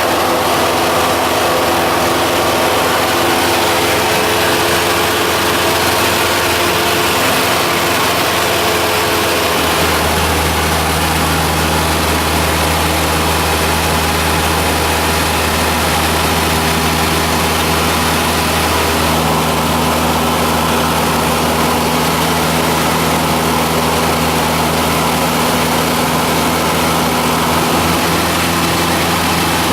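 Cessna 172's piston engine and propeller droning steadily in flight. About ten seconds in, the tone changes and a deeper hum comes in, and it shifts again just before twenty seconds.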